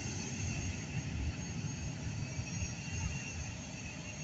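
Distant jet airliner's engines during its takeoff roll: a steady low rumbling roar with a thin hiss above it.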